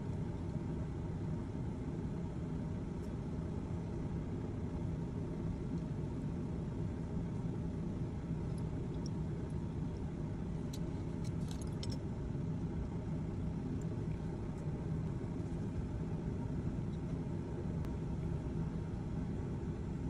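Steady low rumble and hum of laboratory ventilation, with a few faint light ticks about halfway through.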